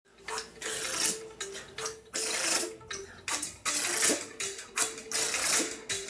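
A person making hissing, sputtering 'thththth' mouth sounds in a quick, uneven rhythm, beatbox-style, imitating parseltongue. A quieter run of short repeating notes plays underneath.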